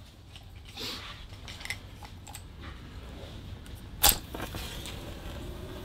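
A wooden match struck on a matchbox about four seconds in, a single sharp scratch as it flares alight. Faint handling clicks come before it.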